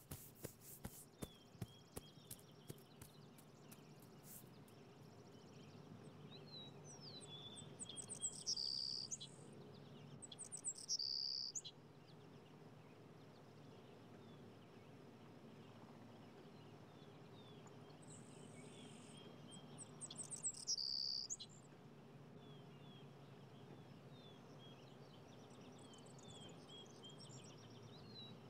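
Quiet outdoor ambience: small birds chirping faintly over a low steady hum. A few soft clicks at the start, and louder high trills about eight, eleven and twenty seconds in.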